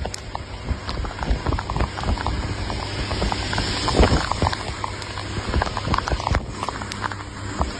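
Rain pattering irregularly on a moving vehicle's windshield and body over a steady low engine hum and tyre hiss on a wet road.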